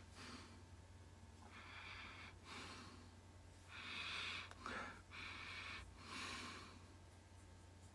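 A man sniffing several times in short breaths, smelling a freshly poured beer. A faint steady low hum runs underneath.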